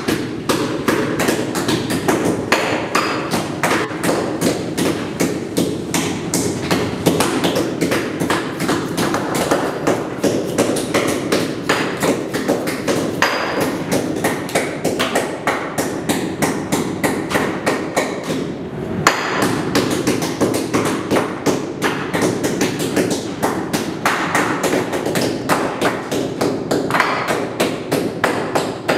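A heavy butcher's blade chopping through bone-in beef ribs on a steel table: a quick, steady run of knocks and thuds, several a second.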